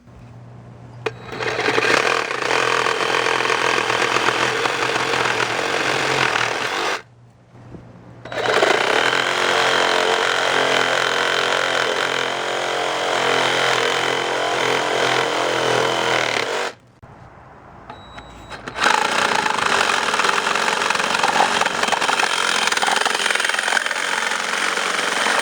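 Black & Decker 20V Max BDCR20B cordless reciprocating saw cutting in three runs of several seconds each, with short pauses between. The first run builds up over about a second as the variable-speed trigger is squeezed.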